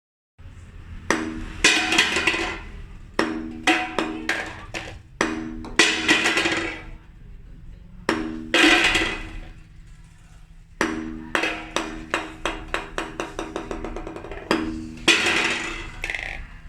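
Golf ball bouncing and clattering on a hard surface: runs of sharp clicks, each run dying away, between short rattling bursts.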